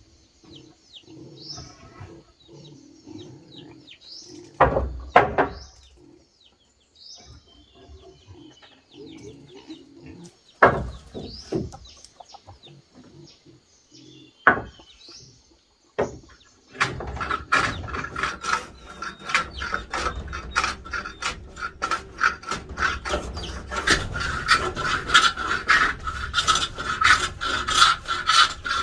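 Birds chirping, with a few sharp knocks of wood. About seventeen seconds in, fast, repeated rasping strokes of a hand tool shaving wood begin and keep going to the end.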